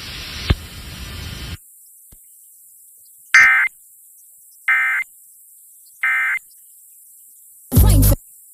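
Emergency Alert System end-of-message signal received off an FM broadcast: three short, buzzy bursts of SAME data tones about 1.4 seconds apart, marking the end of the statewide monthly test. A fading hiss comes before them, and a short loud burst of other audio near the end.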